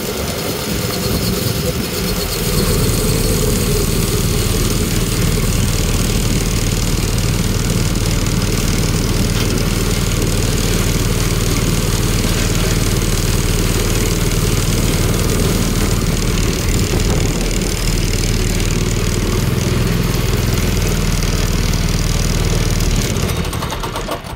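Mini NASCAR-style go-kart's small gasoline engine running steadily under way. It cuts off near the end as the kart stops.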